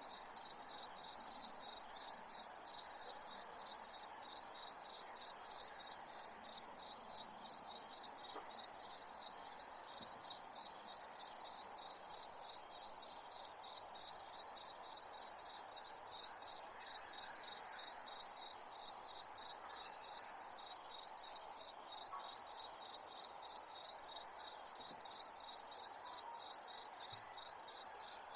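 Crickets chirping: a high-pitched, even pulsing that repeats several times a second without a break.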